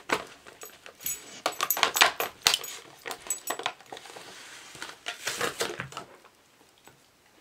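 A dog chewing and tearing at the plastic blister packaging of a chew-bone toy, giving quick irregular crackles and clicks of stiff plastic that stop about six seconds in.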